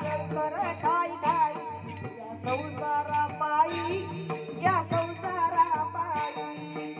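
A young boy singing a Marathi Warkari devotional song through a microphone, drawing out a wavering, ornamented melody without clear words. Small hand cymbals (taal) keep a steady beat of about two strikes a second over a held drone.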